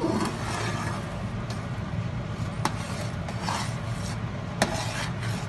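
Metal spoon stirring and scraping a thick semolina and sugar-syrup halwa around an aluminium pan, kept moving so that lumps don't form. The spoon clinks sharply against the pan twice, about two and a half and four and a half seconds in, over a steady low hum.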